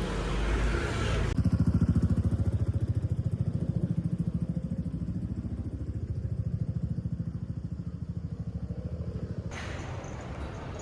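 A vehicle engine running with a fast, even pulse, heard muffled; it starts abruptly about a second in and drops away near the end, with rumbling road-type noise around it.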